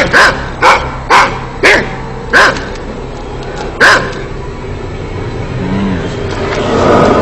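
A dog barking, six or seven sharp barks spaced about half a second apart, with a longer gap before the last one. Near the end a steady noise swells up.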